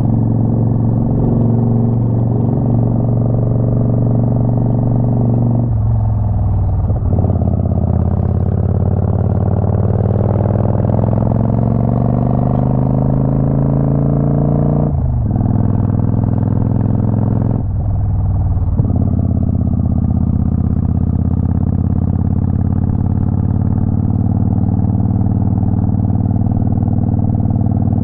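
Motorcycle engine running under way: it pulls up slowly in pitch, drops off briefly three times at gear changes (about six seconds in, about halfway, and a few seconds after that), then runs at a steady cruise.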